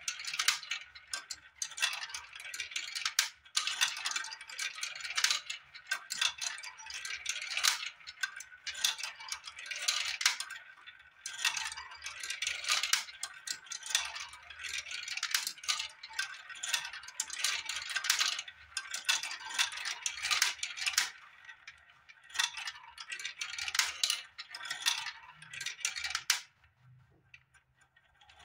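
Small balls clattering and rolling down a plastic building-block marble run, rattling through the chutes and circling the plastic funnels, with quick clicks as they drop. The clatter comes in waves with short lulls and stops about two seconds before the end.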